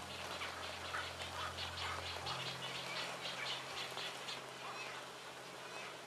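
An animal calling in a rapid run of short calls, about four a second, fading out after about four seconds, over the steady rush of falling water. A low sustained music drone sits underneath and shifts a little past two seconds in.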